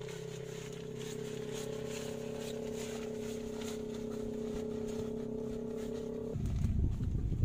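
A steady droning hum at a constant pitch. About six seconds in, wind starts buffeting the microphone with a louder, rumbling gusty noise.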